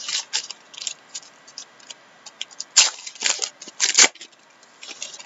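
A 2013-14 Panini Titanium hockey card pack wrapper being torn open and crinkled as the cards are slid out: a run of short crackles, loudest about three and four seconds in.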